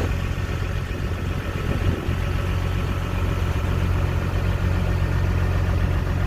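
RC model bulldozer running at idle: a steady, even engine-like hum with no change in speed.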